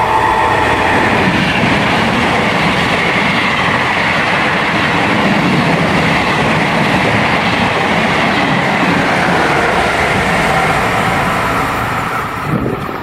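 Passenger train hauled by an electric locomotive running through the station without stopping: a loud, steady noise of wheels running on the rails that eases off near the end as the last coaches go by.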